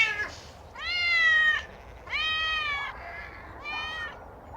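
Cats meowing: three drawn-out meows about a second apart, the last one shorter and quieter.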